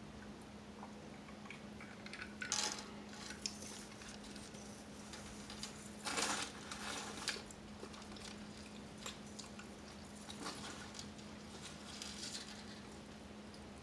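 Close-miked eating of a steak burger: bites and wet chewing with a few sharper clicks and crackles, the loudest about two and a half seconds in and again around six seconds in, over a steady low hum.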